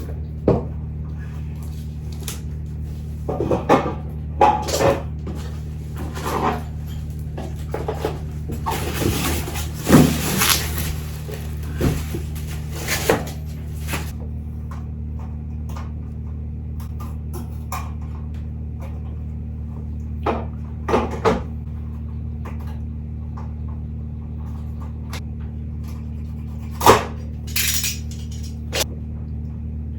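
Things being handled and set down on a desk: scattered knocks and clicks, with a few seconds of rustling about nine to fourteen seconds in, over a steady low hum.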